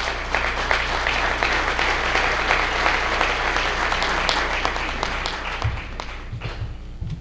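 Audience applauding a speaker's entrance: dense, steady clapping that thins out near the end.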